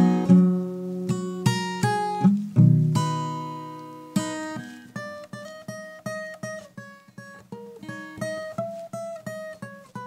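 Background music on acoustic guitar: chords ringing out over the first few seconds, then a picked melody of single notes, a few each second.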